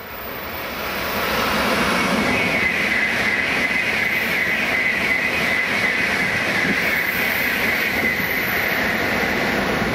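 Tokaido Shinkansen high-speed train passing close by at full speed: a dense rush of wheel and air noise that builds over the first second or two and then holds steady and loud. A high-pitched whine runs through the middle of the pass.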